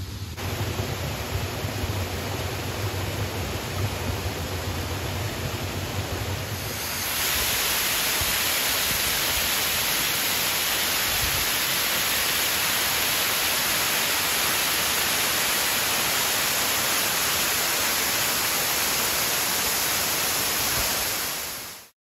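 Water rushing steadily over a small icy waterfall on a mountain stream. It gets louder and brighter about seven seconds in, as it is heard from close to the falling water, and cuts off suddenly at the end.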